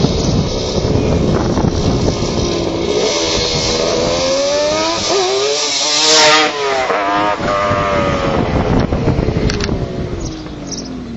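Kawasaki 500cc two-stroke triple with WTF expansion chambers running hard past: its pitch climbs as it comes on, with a brief dip about five seconds in, it is loudest as it goes by about six seconds in, then the note falls steadily as it pulls away.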